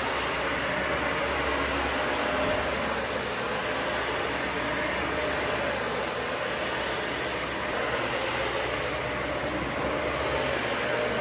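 Dyson Ball Animal 3 upright vacuum cleaner running steadily: an even rush of air with a thin, high, steady whine on top.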